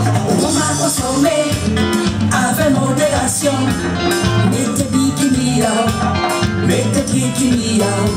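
A woman singing into a handheld microphone over amplified backing music with guitar and a steady bass beat.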